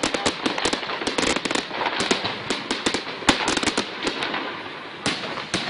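Fireworks finale: a dense, rapid barrage of crackling bangs and pops, with one especially sharp crack about three seconds in, thinning out toward the end.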